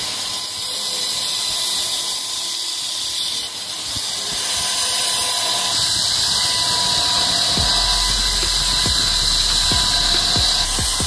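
Belt grinder running with a steel scissor blade pressed against the belt: a steady high grinding hiss with a thin whine. A deeper hum joins about two-thirds of the way through.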